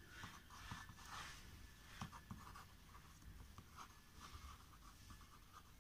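Faint scratching of a marker pen writing on paper, in short irregular strokes.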